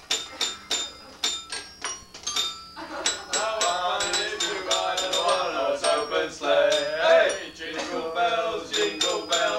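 Music: a quick run of bright, struck, bell-like notes for about the first three seconds, then a voice singing over it.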